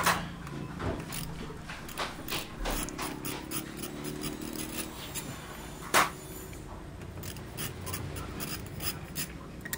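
Light metallic clicks and scraping of a magneto puller being handled and fitted into a motorcycle's flywheel rotor by hand, with one sharper click about six seconds in.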